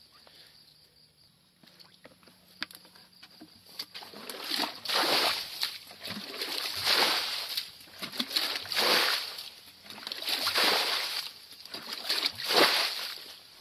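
Shallow muddy water sloshing and splashing as a round hand scoop net is swept through a puddle to scoop up stranded fish. The sweeps start about four seconds in and come five times, roughly two seconds apart.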